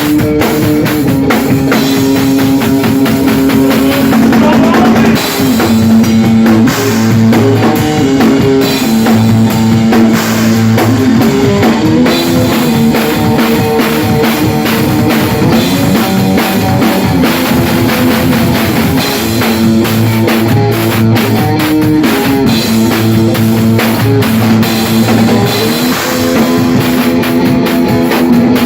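Rock band playing an instrumental stretch of a song live: electric guitar and bass holding chords that change every second or two over a steady drum kit beat, with no singing.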